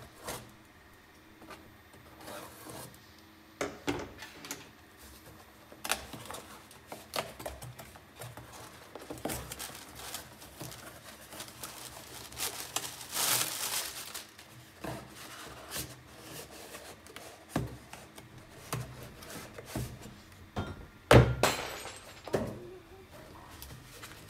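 Cardboard parcel being unpacked by hand: irregular knocks, taps and scrapes of cardboard on the desk, a rustling stretch of plastic air-pillow packing being handled, and one loud thunk a few seconds before the end.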